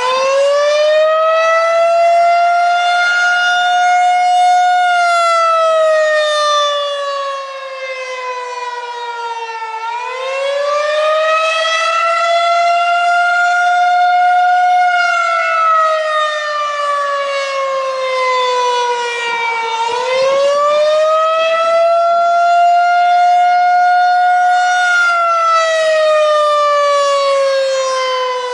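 Federal Signal 2001-130 rotating electromechanical outdoor warning siren sounding the Attack signal: a wail that climbs, holds briefly at its top pitch, then slowly falls, repeating about every ten seconds. The level dips twice as the rotating horn turns away.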